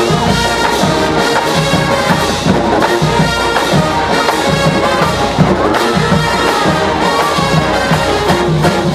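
Marching band playing: a full brass section over percussion keeping a steady beat, with marimbas in the front ensemble.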